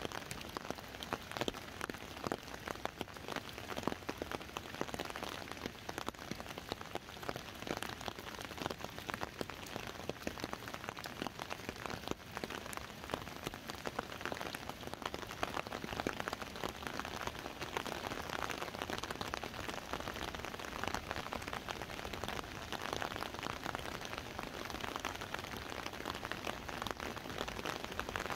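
Steady rain falling on an umbrella overhead: a dense spatter of close drop hits over a wider hiss of rain on the surroundings.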